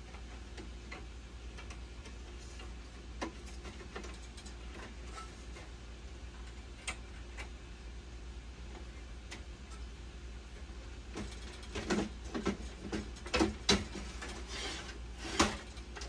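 Irregular clicks and knocks of dialysis-machine parts being handled, a few at first and a dense cluster of louder ones near the end, over a steady low hum.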